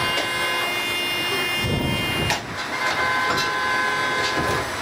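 Car horns sounding in two long, steady blasts, the first stopping about halfway through and the second starting a moment later and holding until near the end.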